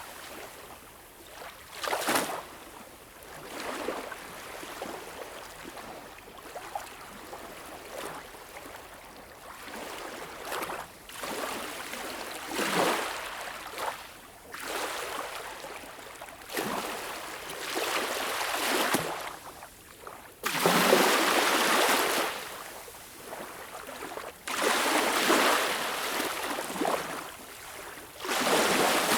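Small waves lapping and breaking on a beach, each wash swelling and receding every few seconds, the biggest surges near the middle and toward the end.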